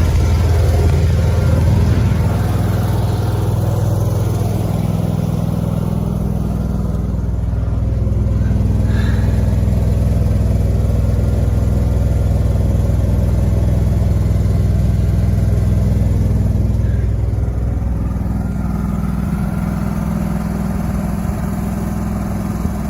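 An engine running steadily at low speed. Its note shifts slightly about six seconds in and again near the end.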